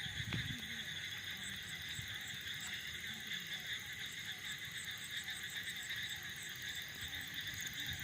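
Night chorus of calling insects and frogs: a steady, unbroken high buzzing, with a faint quick series of short high chirps repeating a few times a second.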